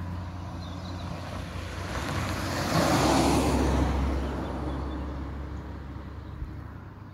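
A road vehicle passes over the level crossing. Its noise swells to a peak about three seconds in and then fades away over a steady low hum.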